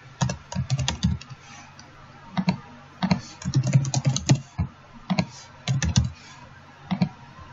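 Typing on a computer keyboard: quick runs of keystrokes in short bursts with brief pauses between them.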